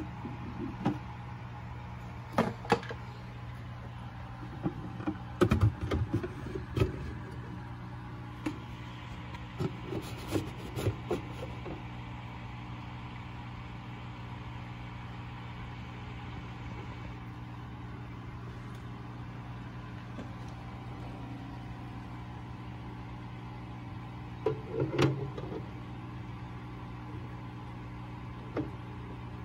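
A steady low mechanical hum, with scattered knocks and rustles of handling during the first twelve seconds and again about 25 seconds in.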